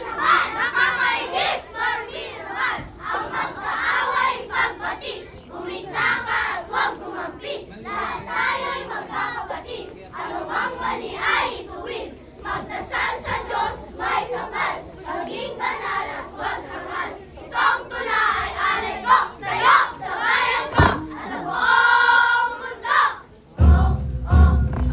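A crowd of children's voices shouting and chattering all at once, with one held shout or sung note a couple of seconds before the end. Music with a heavy bass beat starts near the end.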